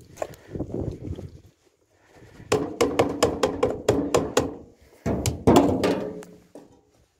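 A metal ladle knocking against an aluminium pot of thick porridge as it is stirred and scooped, in a quick run of knocks with a little ringing, then a second run about five seconds in.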